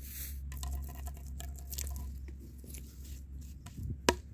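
Light crackling and rustling with small scattered clicks, then one sharp slap near the end as a raw cut of meat drops onto a wooden board.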